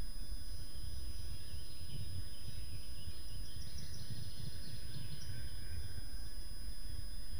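Steady outdoor ambience: a constant low rumble with faint birdsong chirping high above it, and a thin, steady high-pitched electronic whine.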